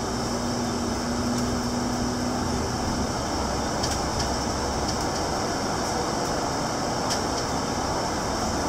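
Steady engine and road noise of a double-decker bus driving through a road tunnel, heard from inside the cabin. A low hum drops away about three seconds in, and a few faint ticks sound over the noise.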